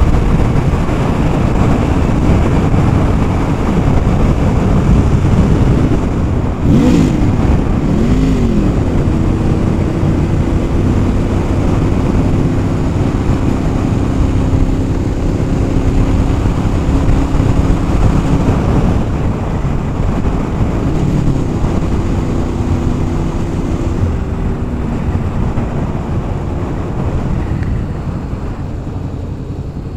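Honda VFR800 Interceptor's V4 engine running under way, mixed with wind rush on the helmet mic. About seven to nine seconds in, the engine pitch swings up and down a couple of times, then holds a steady cruising tone, and the sound grows quieter toward the end.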